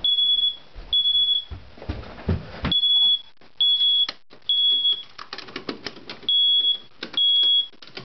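Smoke alarm sounding its temporal-three pattern: high piezo beeps in groups of three with a pause between groups, set off by cooking smoke from food burning in the oven. A low rumble comes between the first and second groups, and irregular clicks and knocks follow later.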